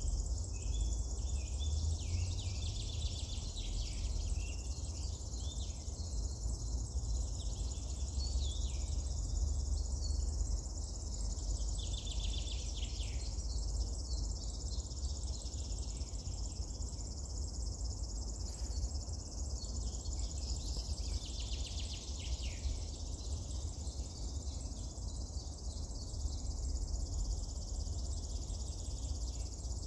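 Songbirds chirping and trilling over a steady high insect buzz, with a low rumble of outdoor background noise.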